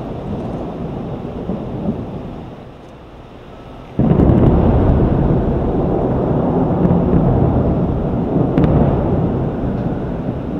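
Thunder rumbling and dying down, then a sudden loud clap of thunder about four seconds in that rolls on and slowly fades.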